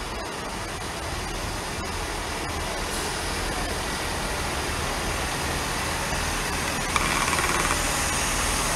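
Great Western Railway Networker Turbo diesel multiple unit running into the platform, its diesel engine and wheels on the rails growing steadily louder as it nears. A short high-pitched squeal about seven seconds in.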